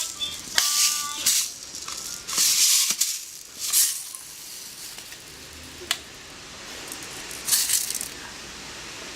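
An alarm clock's electronic tune sounds briefly at the start, then something is rattled in several short bursts, with a single sharp click about six seconds in.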